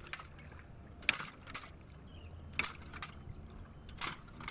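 A hand-operated rice-planting tool clacking: sharp metallic clacks at uneven spacing, about one a second, over a low steady rumble.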